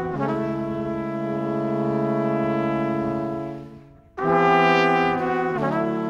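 Background music of long held chords with a full, brassy sound. The chord changes just after the start, fades to a brief gap about four seconds in, then a new chord comes in and steps lower near the end.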